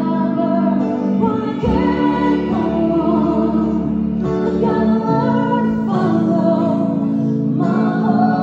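Live band music: a woman singing held notes over strummed acoustic guitars and keyboard.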